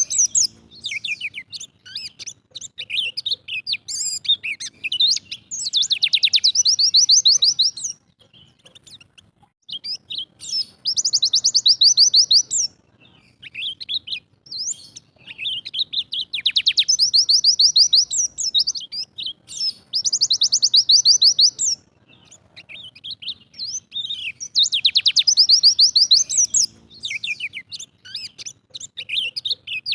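White-eye (pleci) singing: loud bursts of fast, high trilling, each lasting one to two seconds and coming again every few seconds, with short scattered chirps in between.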